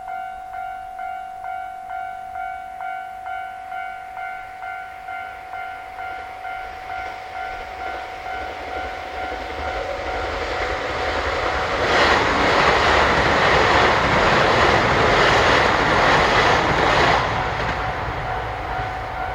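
Japanese level-crossing warning bell ringing about twice a second while a KiHa 261 series diesel limited express train approaches and passes. The train's noise builds over several seconds, then a loud rush with rhythmic wheel clacks drowns the bell for about five seconds past the middle. The bell is heard alone again near the end.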